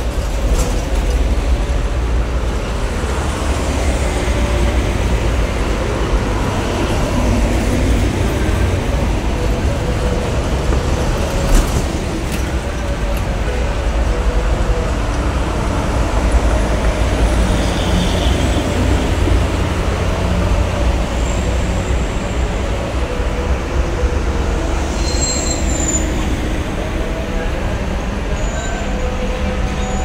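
Heavy highway traffic: trucks and buses passing close by, with a steady low rumble of diesel engines and tyre noise. A few brief high squeals come in the second half.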